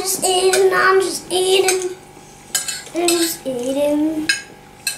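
A young child singing a simple tune in short held notes, some sliding in pitch, with spoons clinking against plates and bowls.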